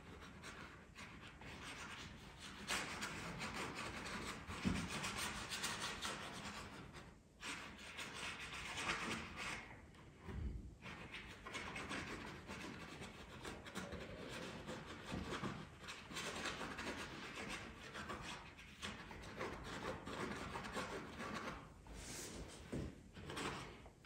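Bristle brush scrubbing oil paint across a canvas: a long run of scratchy strokes, with brief pauses about seven and ten seconds in.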